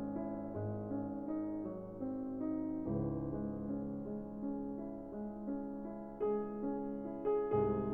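Background piano music: slow, sustained keyboard notes and chords.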